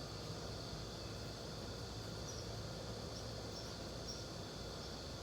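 Faint outdoor ambience of insects, likely crickets: a steady high hum with a few short, high chirps from about two seconds in, over low background noise.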